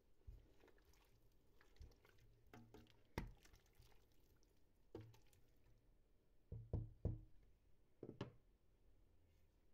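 Wooden spoon stirring chunks of pork fat in a stainless steel pot, with scattered knocks of the spoon against the pot; a close pair of louder knocks comes a little past halfway.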